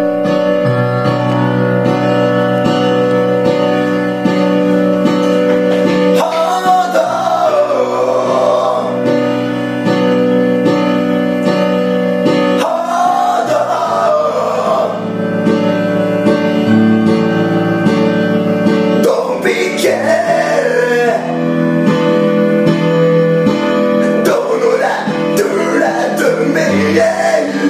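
A man singing into a karaoke microphone over a backing track with guitar. The instrumental plays alone for about six seconds before the voice comes in, then he sings in short phrases with instrumental gaps between them.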